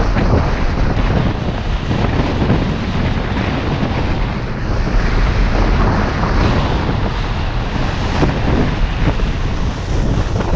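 Wind buffeting the microphone of a camera carried by a skier moving downhill. A rough hiss of skis sliding and scraping on snow runs under the rumble.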